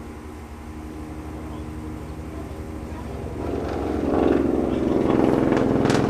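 An engine running with a rapid pulsing hum, growing steadily louder, as of a vehicle approaching and passing close by, with a sharp click near the end.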